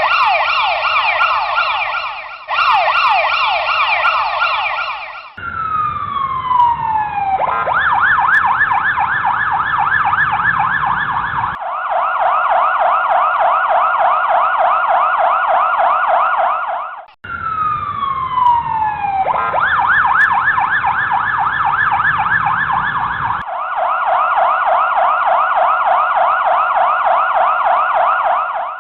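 Ambulance siren sound effect: an electronic siren in rapid rising-and-falling sweeps, broken twice by a long falling glide before the fast sweeps resume. The sequence restarts once, after a short break about halfway through, and the sound cuts off abruptly at the end.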